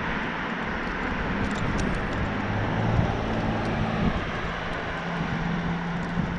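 Fat-tire bicycle rolling along a concrete sidewalk: a steady rushing noise of tyres and air, with a low drone that wavers in pitch.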